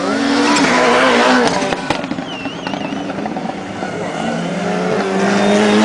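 Autocross race cars' engines running hard on a loose dirt track, louder about a second in as a car passes, with engine notes rising and falling through the rest.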